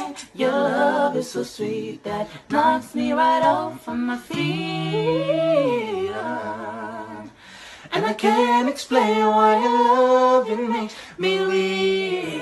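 Unaccompanied group singing by young voices, a woman's voice out front. A long held note glides up and back down near the middle, and the voices sing together again from about eight seconds in.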